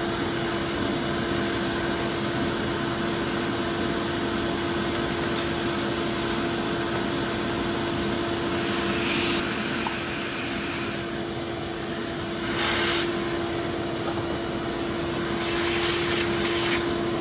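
Shop vacuum running steadily with a constant hum, its suction drawn through a large corrugated hose, with a few brief louder rasps at about 9, 13 and 16 seconds in.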